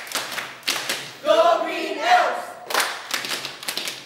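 A group chanting a cheer in unison, one line of voices about a second in, with sharp hand claps before it and a quick run of claps near the end.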